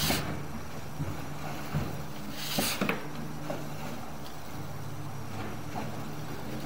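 Steady low mechanical hum with a few sharp knocks and rattles, the loudest right at the start and a pair about two and a half seconds in, as a sewer inspection camera's push cable is pulled back out of a drain line.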